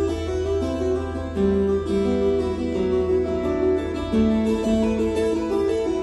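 Amplified acoustic guitar played fingerstyle, picking out a melody of clear, separate notes over a steady low bass note.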